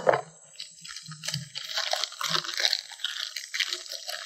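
A sharp rip as a plastic bag of brown sugar is pulled open, then crinkling of the bag as brown sugar is scooped out of it.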